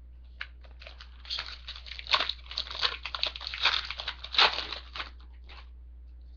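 Wrapper of a 2012 Upper Deck SP Authentic football trading-card pack being torn open and crinkled by hand. It gives a dense run of crackles and rustles starting about a second in, with a few louder crackles, and stops shortly before the end.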